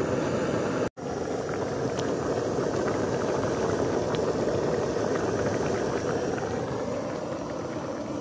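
Tomato and egg curry boiling hard in a wok: a dense, steady bubbling with small pops, which cuts out briefly about a second in.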